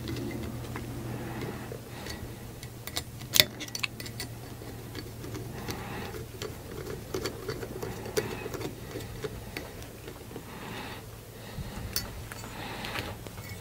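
Small metal hardware and printer-kit parts being handled on a work mat, giving irregular light clicks and taps, one sharper tap about three seconds in, over a steady low hum.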